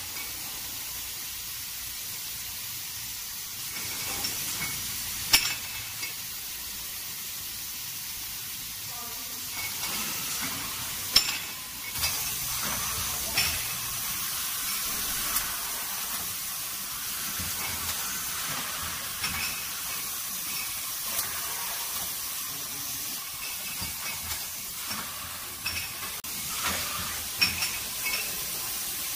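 Fully automatic chain-type screen-printing machine for 750 ml Bordeaux wine bottles running: a steady hiss with sharp mechanical clacks and glassy clinks now and then, coming more often in the second half.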